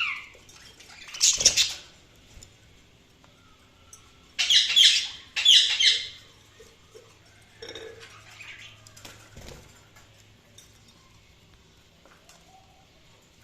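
A bird calling: one short loud call about a second and a half in, a louder run of calls from about four and a half to six seconds, then a few fainter calls.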